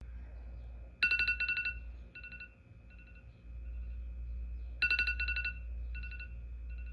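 iOS alarm ringing: groups of quick, high electronic beeps, each loud group followed by two fainter repeats, the pattern coming round twice, about every four seconds.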